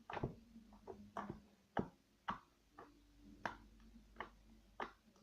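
Homemade slime being pressed and worked by fingers, making short clicks and pops about twice a second.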